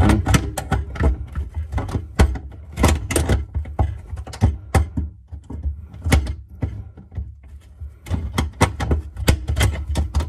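Irregular clicks and knocks of a hand tool and metal fittings as the faucet's mounting nut is worked loose from under the sink basin, over a low steady rumble.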